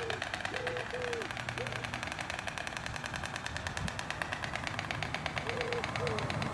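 White stork clattering its bill: a fast, even wooden rattle kept up steadily, the storks' clattering display used to greet a partner at the nest or to defend the young.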